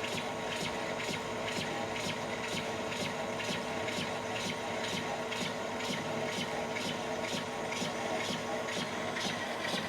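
Manual lathe running and turning the outside diameter of a steel plate: a steady machine hum with a regular tick about three times a second.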